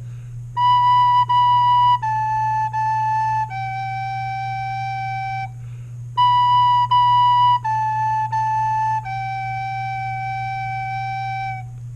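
Soprano recorder playing two identical tongued phrases of five notes, B, B, A, A and a long held G, in a high clear tone, with a short breath between the phrases about six seconds in. A faint steady electrical hum lies underneath.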